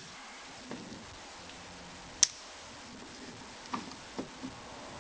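Ford Falcon XD–XF door latch mechanism giving one sharp click a little over two seconds in as the lock is worked, with a few faint knocks later. A definite click like this shows the latch spring is intact; without it the spring is broken.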